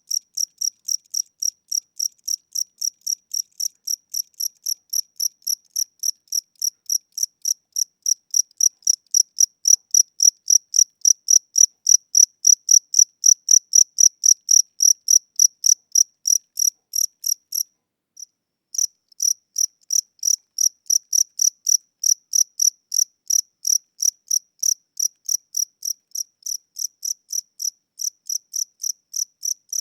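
A single cricket chirping in an even, slow rhythm of about two to three high-pitched chirps a second, with a brief break a little past halfway. The owner takes the slow tempo for a sign that the cricket is tired or old, its wings getting weak.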